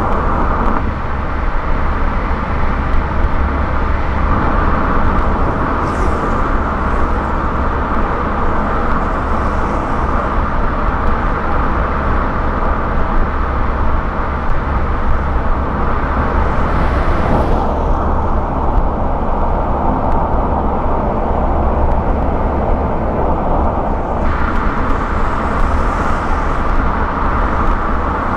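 Car driving at highway speed: steady road and tyre noise with a deep rumble, and a faint swish of passing traffic a few times.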